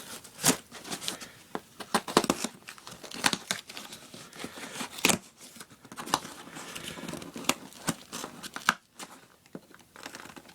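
Cardboard shipping box being cut open: reinforced packing tape sliced and torn, with the cardboard scraping and crinkling in irregular sharp rips.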